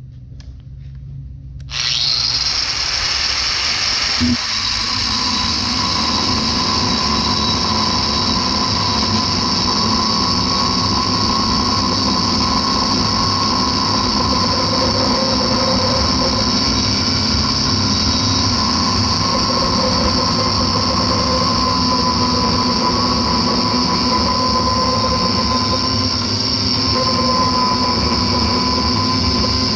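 Power tool with an abrasive cutting wheel cutting through aluminum. A loud, steady grinding whine starts about two seconds in and runs on unbroken, with a short knock just after it starts.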